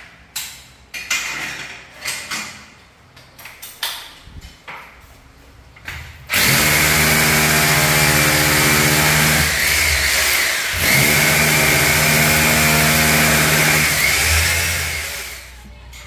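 A few scattered knocks and clicks, then about six seconds in a corded power drill starts boring into the wall. It runs loud and steady for about nine seconds, with one brief break near the middle, and stops near the end.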